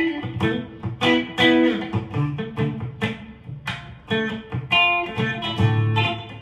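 Telecaster-style electric guitar with twin humbucker pickups played through a clean tone: a run of single picked notes and chords, each ringing briefly before the next.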